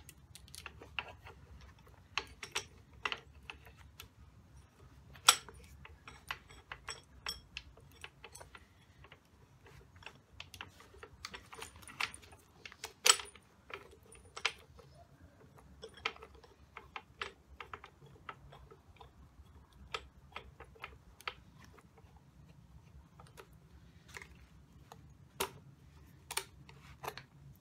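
Irregular metal clicks and clinks as a coil spring compressor's hooks and threaded rods are handled and seated onto a strut's coil spring. Two sharper clacks stand out, about five and thirteen seconds in.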